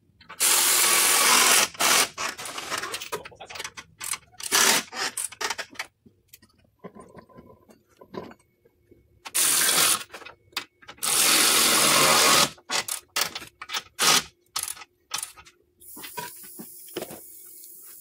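Powered ratchet running in bursts of a second or so, tightening the nuts on an exhaust pipe clamp, with short ratchet clicks and tool clatter between the bursts. A steady hiss comes in near the end.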